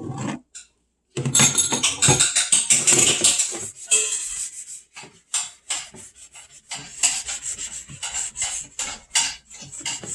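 Chopping board being scrubbed by hand: quick rubbing strokes in fast succession, with a short break about a second in.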